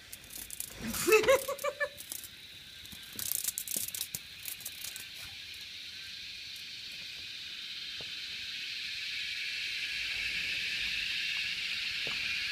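Cicadas: rapid clicking and rattling in the first few seconds, with a brief rising cry about a second in, then a steady high buzz that grows gradually louder towards the end.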